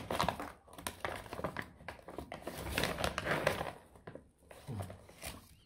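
Plastic cat-food bag crinkling and rustling as it is handled and cut open at the top with scissors.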